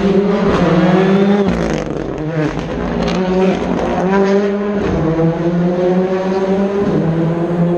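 Rally car engine driven hard, its revs climbing and dropping back several times as it accelerates and lifts or shifts.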